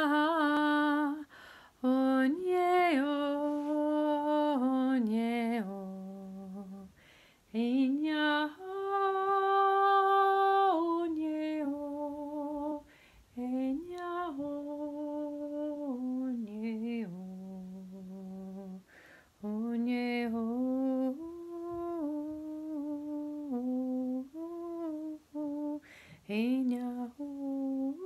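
A woman's voice toning: wordless held notes that step up and down between pitches, each sustained for a second or more, with short breaks for breath. The longest, highest-held note comes about eight seconds in.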